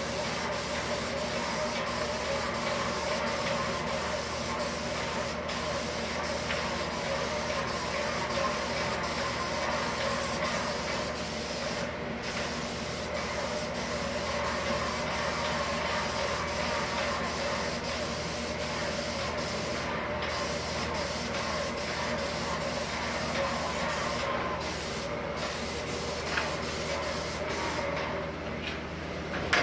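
Airless paint sprayer spraying pre-catalysed lacquer: a steady hiss from the spray gun with a steady hum underneath. The hiss cuts out briefly a few times and stops near the end.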